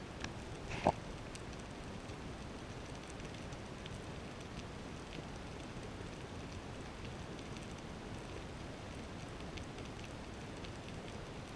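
Underwater ambient noise: a steady low hiss with scattered faint ticks and crackles, and one sharp click about a second in.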